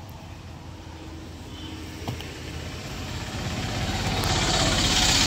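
A motor running with a steady hum, growing gradually louder over the last two seconds or so.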